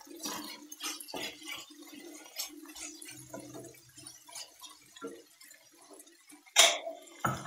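Wooden spatula stirring and scraping frying shallots, tomato and spices around a kadai, with a light crackling sizzle of the oil. Two louder knocks near the end, over a faint steady hum.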